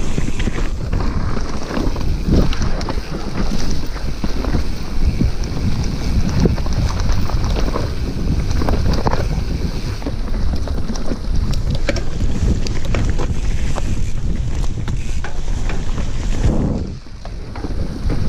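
Wind buffeting the microphone of a bike-mounted action camera while a mountain bike rides fast down a rough dirt forest trail, with tyre rumble and frequent rattles and knocks from the bike over roots and bumps. The noise eases briefly about a second before the end.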